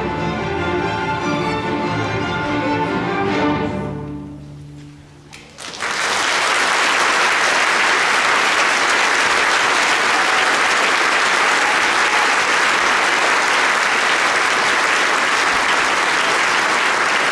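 A large string orchestra of violins, cellos and double basses plays its closing bars and ends on a held chord that dies away about four seconds in. After a moment of quiet, the audience breaks into loud, steady applause.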